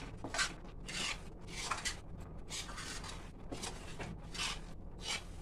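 Metal spatula scraping and stirring a thick, crumbly mixture of ground peanuts and jaggery syrup around a metal kadhai, in repeated scraping strokes at an uneven pace of one to two a second.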